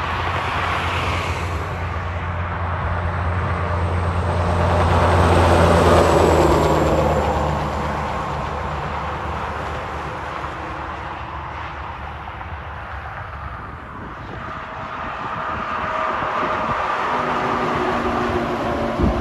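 Highway traffic passing: tyre and engine noise of cars and trucks swelling to a loud pass about six seconds in, with a low diesel drone, then easing off. Near the end a semi truck approaches and its engine and tyre noise rise again.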